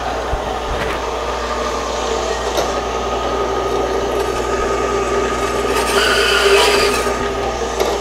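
Horizontal metal-cutting bandsaw running with its blade cutting through a small round metal workpiece: a steady motor-and-blade whir. It grows louder and brighter for about a second, a little past the middle.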